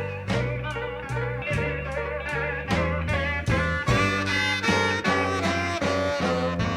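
Live electric blues band playing an instrumental stretch of a slow blues: guitar lines with bent notes over bass and drums.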